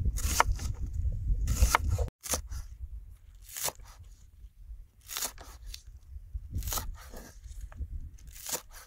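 Large kitchen knife cutting through onion and then green onions on a wooden cutting board: separate crisp, crunchy cuts, about one every one to two seconds.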